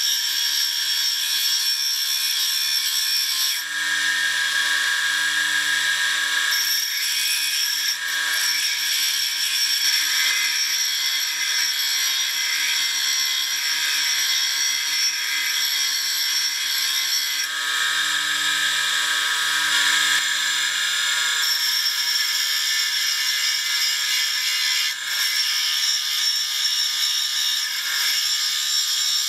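Small bench tool grinder's electric motor running with a steady hum while a brazed-tip lathe parting tool is ground against its diamond cup wheel. The grinding gives a dense hiss that changes several times as the tool is pressed on and moved across the wheel.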